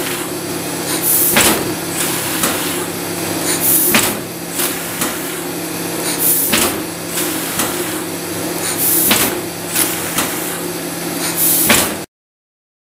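Foliant Mercury 530SF laminator running with a steady hum and a sharp clack about every two and a half seconds, one for each sheet fed through.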